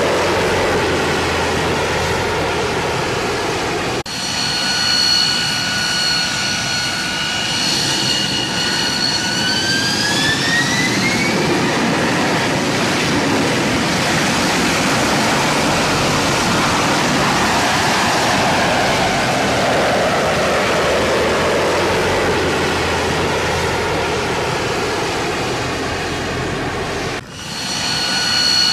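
Jet engines roaring, with a high multi-tone turbine whine that rises in pitch about ten seconds in and then fades. The sound breaks off and changes abruptly about four seconds in and again near the end.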